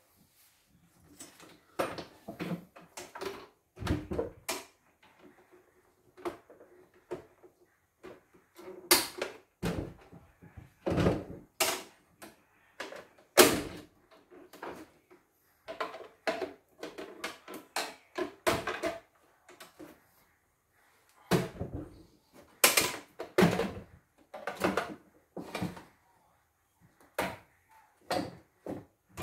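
Irregular clicks, knocks and clatter of hands and a screwdriver handling the plastic casing and metal parts of a CNY E960 embroidery machine as it is taken apart; no motor is running.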